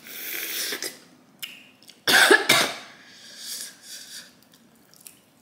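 A woman slurps juice from a spicy crawfish at the start, then coughs loudly about two seconds in, followed by softer breathy noises.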